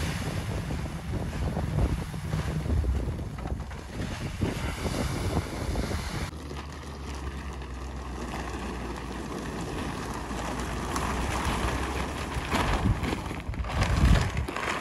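An engine running steadily at idle with wind on the microphone; about six seconds in it gives way to a quieter low engine hum and the rustle and flap of a large plastic tarp being dragged over a grain pile.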